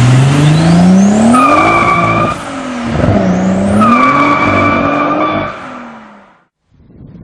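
Turbocharged VR6 six-cylinder of a Golf 3 under hard acceleration. The revs climb, drop at a gear change about two and a half seconds in, then climb again in the next gear before the sound dies away and cuts off. A high steady squeal rides over each pull.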